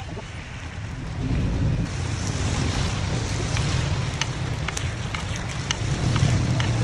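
Coconut cake batter sizzling in a hot multi-cup metal mold pan over a steady low rumble, with sharp clicks of a metal spoon against the pan from about halfway through as cakes are lifted out.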